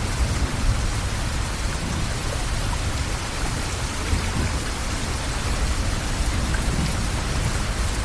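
Floodwater of a swollen river rushing and churning past a bridge: a loud, steady noise with a deep rumble underneath.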